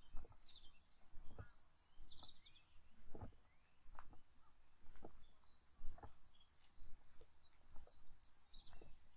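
Footsteps on a path at an even walking pace, about one step a second, with small birds chirping in short high notes over them.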